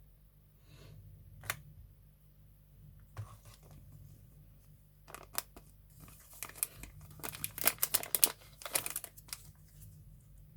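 Hands handling craft supplies on a work surface: crinkling and rustling with sharp little clicks and taps, a few scattered at first, then a busy run of them from about five to nine seconds in.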